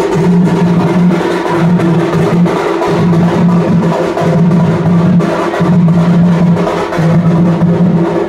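Music with drums and percussion over a low, repeating note pattern.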